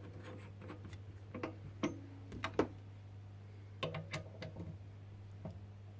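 Light, scattered clicks and knocks of metal tools being handled, as a drill bit is swapped for the next one, over a steady low hum.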